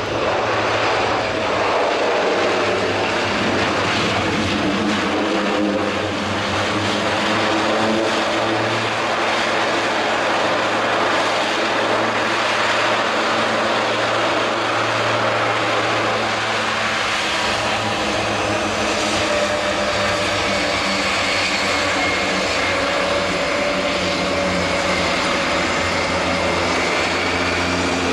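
Airbus A400M's four Europrop TP400 turboprops running at high power with their propellers in beta (reverse pitch), a loud steady propeller and engine noise of reverse thrust braking the aircraft after touchdown. A faint whine rises in pitch near the end.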